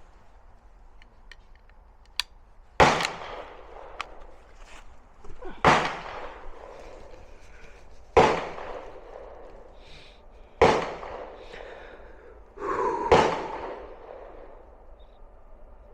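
Five sharp gunshots about two and a half seconds apart, each followed by a short echo.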